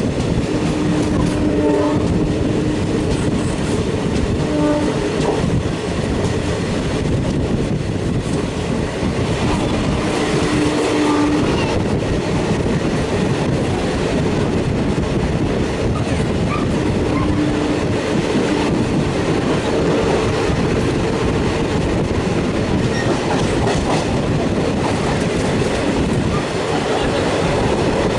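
Express passenger train running past, its wheels clacking steadily over the rail joints, while a train horn sounds several times: a few short blasts early on and a longer one about ten seconds in.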